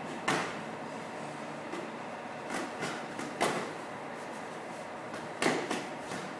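Thai boxing sparring: kicks and punches landing on boxing gloves and shin guards, short sharp smacks, one about a third of a second in, a quick run of four around three seconds in, and two more near the end, over steady background noise.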